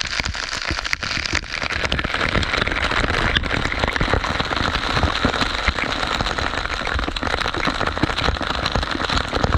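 Waterfall water splashing and spattering down in a steady dense rush, peppered with many small hits of drops.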